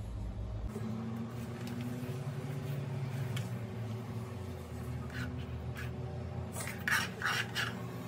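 Chopped green onions being scooped by hand and dropped into a plastic container, with soft rubbing and rustling. Near the end come a few quick scrapes and knocks as a knife sweeps the last pieces across a plastic cutting board. A low steady hum runs underneath.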